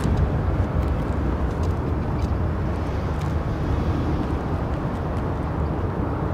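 Steady low rumble of a Boeing 787-9's jet engines on final approach, heard from a distance and mixed with wind noise on the microphone.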